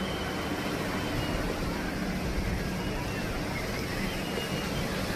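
Steady rushing outdoor noise with a low, unsteady rumble and no distinct events.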